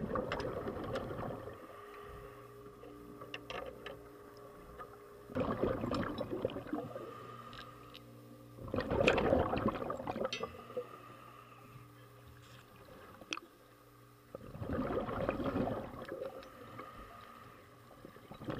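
Scuba diver breathing through a regulator underwater: four loud rushes of exhaled bubbles, each lasting one to two seconds and coming a few seconds apart, with quieter steady sound between them, picked up through the camera's sealed underwater housing.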